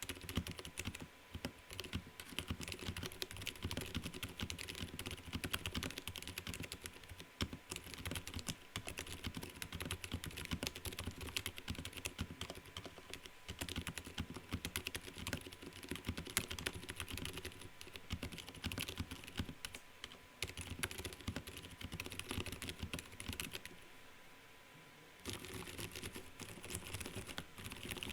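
Continuous typing on a Vortexseries VX6 mechanical keyboard with Gateron Silent Brown switch stems in pre-tooled Cherry housings, lubed, under dye-sublimated PBT keycaps in an o-ring gummy mount. The keystrokes are a quick, muffled patter, with a short pause about three-quarters of the way through.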